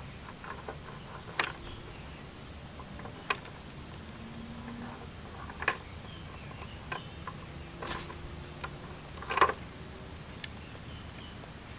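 African grey parrot's beak knocking and clicking on a plastic bucket and its wire handle: about eight scattered sharp clicks, the loudest about nine seconds in, over a faint low hum.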